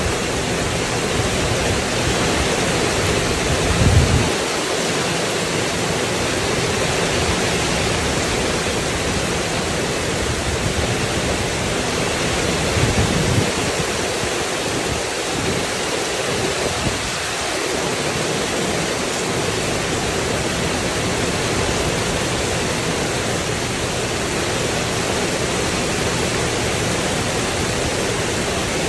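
Steady heavy rain falling on a porch's tin roof, a dense even hiss. Brief low rumbles swell up about four seconds in and again about thirteen seconds in.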